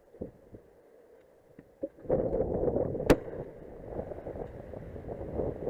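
A single sharp shotgun report about three seconds in, fired at a duck flying overhead. A loud rush of wind noise on the microphone sets in just before it.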